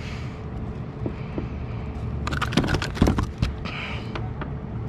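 Knocks, taps and slaps in a quick cluster through the middle, from a fluke being handled and flipped over on a plastic kayak deck, over a steady low rumble of wind on the microphone.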